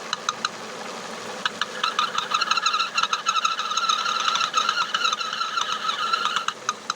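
High-pitched squeal from the flywheel end of a running Nissan Terrano engine, over the engine's light ticking. The squeal comes in about a second and a half in, holds steady and drops away shortly before the end. It is a sign of a faulty crankcase ventilation valve pulling a vacuum in the crankcase, which at first sounds like the clutch release bearing.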